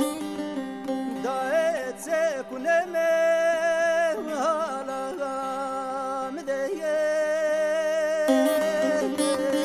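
Zaza folk elegy music: an ornamented melody with wavering, sliding notes and long held tones over a steady drone-like accompaniment.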